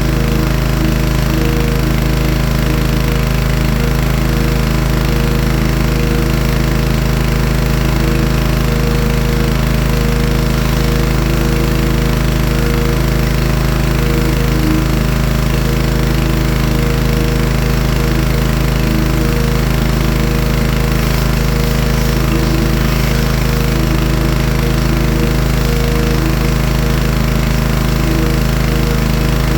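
Gas-engine pressure washer running steadily under load, its small engine humming beneath the hiss of the high-pressure water jet on stone paving.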